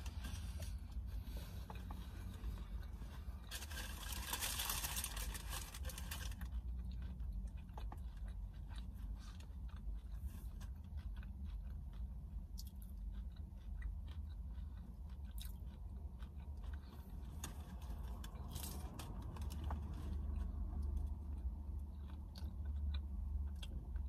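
Close-up chewing and crunching of Taco Bell food, many small crisp crunches, over a steady low hum. A brief rush of noise comes about four seconds in.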